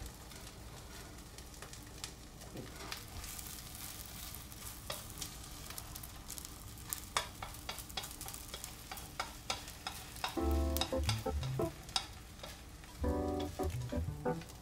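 Egg omelette sizzling in a frying pan over a gas flame, with light clicks and scrapes of a utensil against the pan as the egg is folded over chicken rice. Short bursts of music come in near the end and are louder than the cooking.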